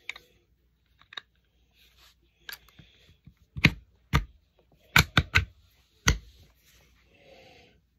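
Metal parts of a Desert Eagle .44 Magnum pistol clicking and clacking as they are handled and pushed together during reassembly: a string of sharp knocks, the loudest about six in the middle with three in quick succession, and light scraping between them.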